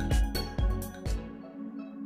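Electronic beat playing back from Native Instruments Maschine: drum hits about four a second over a synth chord. The drums stop a little over a second in, leaving the chord held on its own.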